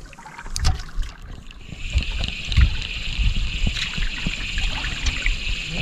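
Water sloshing and gurgling against a small fishing boat's hull, with irregular low rumbles and knocks. A steady high hiss comes in about two seconds in.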